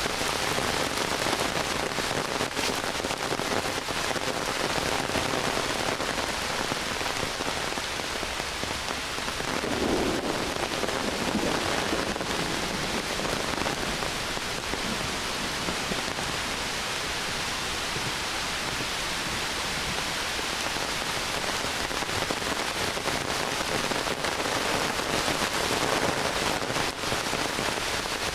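Heavy rain falling in a forest: a steady dense hiss with a thick patter of individual drops hitting leaves and ground. About ten seconds in a brief low swell rises under the rain.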